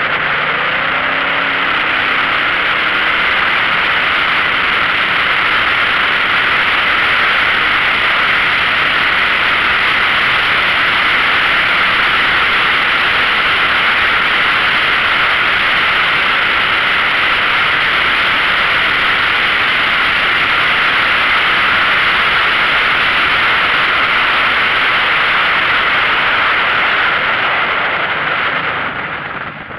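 Yamaha XVS 1300A Midnight Star's V-twin with a Vance & Hines Pro Pipe 2-into-1 exhaust, heard from on board: the engine note rises as the bike accelerates in the first few seconds, then a steady rush of wind and road noise on the microphone covers it while cruising, easing near the end as the bike slows.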